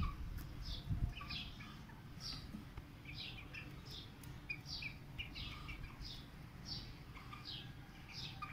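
Faint, short, high chirps of small birds, repeated irregularly about twice a second, each sliding down in pitch, over a low background hiss.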